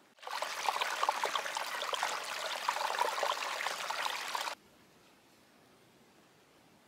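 Running water, as of a small mountain stream, with a steady rush and quick splashes. It starts suddenly and cuts off abruptly about four and a half seconds in.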